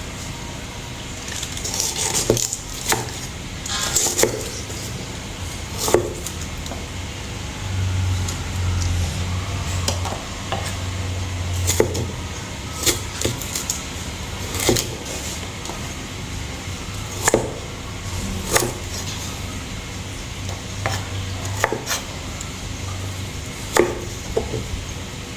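Irregular knocks and clinks of kitchen work, sharp single taps scattered a second or two apart over a steady low background.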